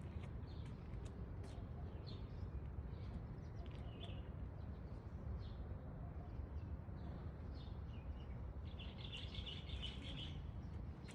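Small birds chirping: short high chirps scattered throughout, with a quick run of twittering about nine seconds in, over a steady low rumble.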